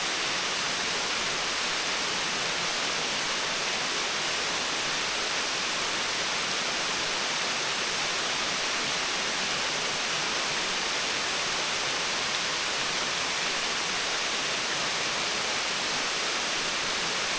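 Creek water rushing steadily over rocks, an even hiss with no breaks.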